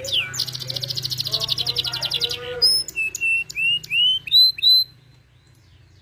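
Domestic canary singing: a fast rolling trill, then a run of separate rising chirps, stopping about five seconds in.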